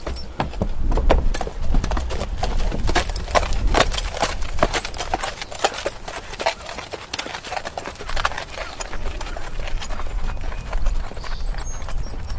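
Horse walking, its hooves clip-clopping in an irregular run of strikes, over a low steady rumble.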